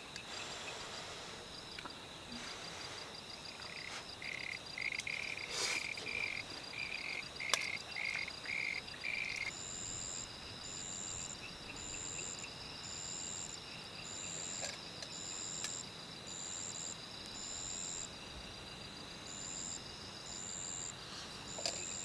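Outdoor chorus of frogs and insects: a steady high insect trill throughout, a frog croaking in quick repeated notes, about two or three a second, from about four to nine seconds in, then a higher insect chirp repeating about once a second. Two sharp taps stand out in the middle, the louder one about seven and a half seconds in.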